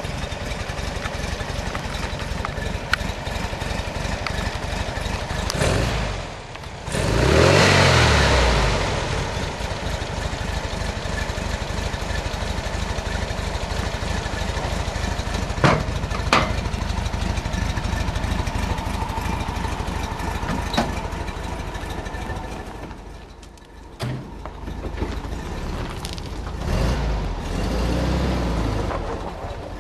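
The 1957 VW Beetle's air-cooled flat-four engine running with an even pulse. About seven seconds in it briefly drops away, then revs up loud for a couple of seconds, and it revs again near the end. A few sharp clicks are heard along the way.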